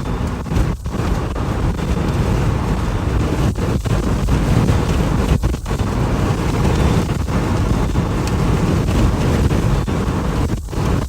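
Strong wind buffeting the microphone: a loud, steady rumble with a few brief dips where the sound drops out.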